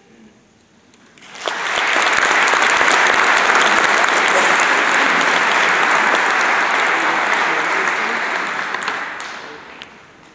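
Audience applauding at the end of a tune. It breaks out suddenly about a second and a half in, holds steady, then dies away near the end.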